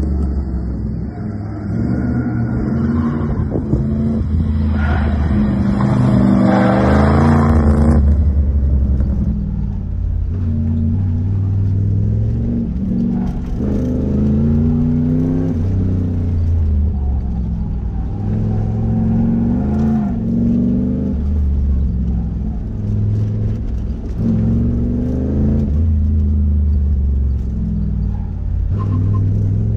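Third-gen Pontiac Firebird's engine driven hard through an autocross course, its pitch repeatedly climbing and dropping as the throttle comes on and off between corners.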